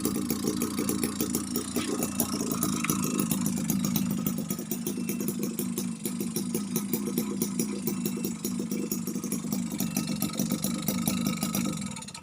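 Homemade miniature two-stroke engine built from refrigerator compressor parts, running steadily with a fast, even firing rattle; the sound cuts off near the end.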